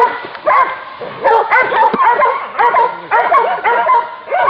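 Several dogs barking and yelping excitedly, in rapid overlapping barks about two to three a second: hunting dogs baying at a pig.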